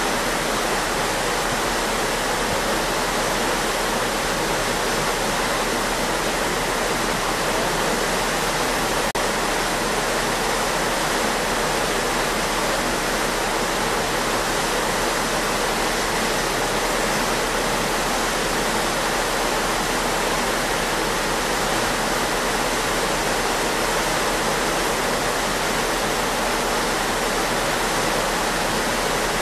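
Steady rushing and hissing of a ship's wake: water churned up behind the stern, an even, unbroken noise.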